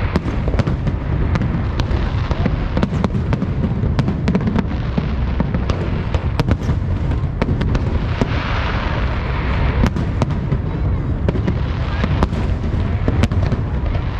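Fireworks going off: a rapid, continuous run of sharp pops and cracks over a steady low rumble, with a hissing crackle swelling about eight seconds in.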